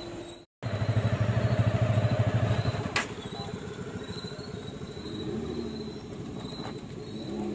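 Motorcycle and scooter engines running close by. They are loudest for about two seconds after a split-second dropout near the start, then quieter, with a sharp click about three seconds in. Crickets chirp steadily in the background.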